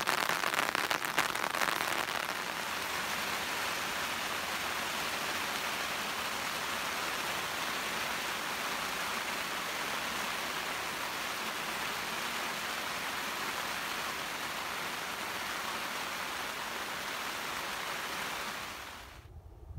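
Steady rain falling. There is a crackly patter of drops for the first couple of seconds, then an even hiss that fades out about a second before the end.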